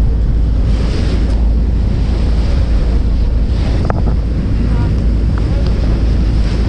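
Wind buffeting the microphone on an open boat deck, a heavy steady low rumble, over the wash of the sea. A single sharp click comes about four seconds in.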